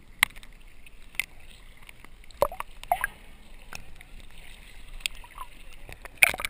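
Sea water sloshing against a GoPro's waterproof housing held at the surface, with sharp irregular taps and short gurgles as small waves wash over it, and a louder splash near the end as it dips under.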